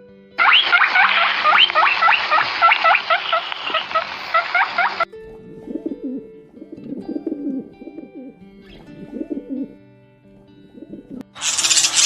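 Birds calling: a fast, dense run of high chirps that cuts off abruptly about five seconds in, followed by several phrases of low cooing. Near the end a loud, harsh call starts.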